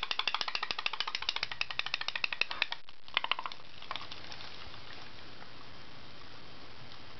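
Toy putt-putt (pop-pop) steam boat engine popping rapidly and evenly, about a dozen pops a second, then stopping about three seconds in. A few scattered clicks follow.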